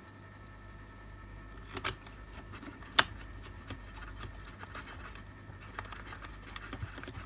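Light clicks and scrapes of a plastic security-light housing being handled and pressed together, with one sharper click about three seconds in.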